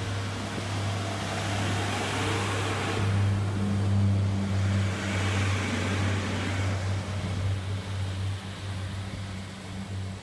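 Northern Class 142 Pacer diesel multiple unit pulling out of the station, its underfloor diesel engines giving a steady low drone. The rush of the passing coaches swells for a few seconds in the middle and then fades as the train draws away.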